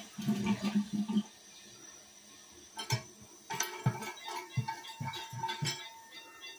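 Scattered clinks and knocks over background music, with a louder burst of sound in the first second.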